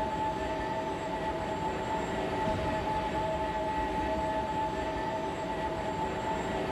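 Steady droning scrap yard ambience: two held tones over a rough low rumble, unchanging throughout.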